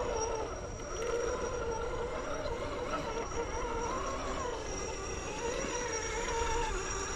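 Electric motor and geartrain of an RC rock crawler whining as it creeps over rock, the pitch rising and falling slowly with the throttle, with a steady high-pitched whine above it.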